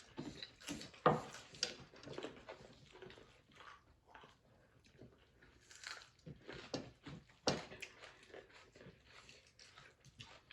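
Close-miked mukbang eating: irregular chewing, biting and wet mouth sounds, with sharper clicks about a second in and again near seven and a half seconds.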